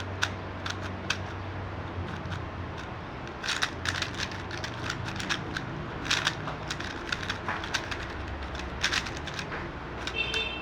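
Magnetic speed cube being turned in the hands: irregular plastic clicks and clacks as the layers snap round, over a low steady hum.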